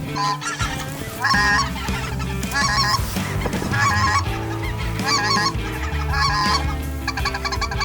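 Specklebelly (greater white-fronted) geese calling: short, high, yodeling two-note calls repeated about twice a second.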